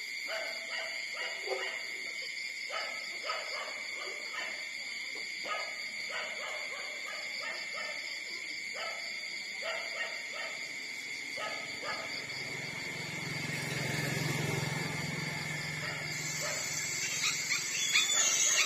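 Eighteen-day-old puppies nursing from their mother: many short, soft grunts and suckling noises, then a few high squeals near the end. A low hum swells and fades in the middle.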